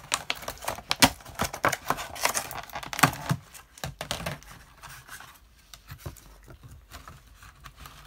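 Thin clear plastic tub being handled and its lid opened: a quick run of crackling and clicking plastic, then soft rustling of paper towel inside that dies down about five seconds in.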